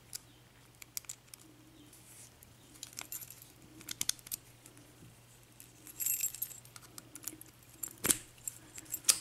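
American Lock padlock being tried with its key: small metallic clicks and key rattles as the key is turned and the lock worked, with a sharper click near the end.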